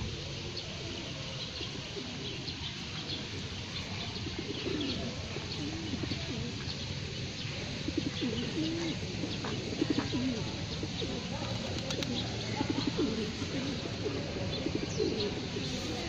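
Feral rock pigeons cooing over and over, several birds calling on top of one another, with small birds chirping faintly higher up.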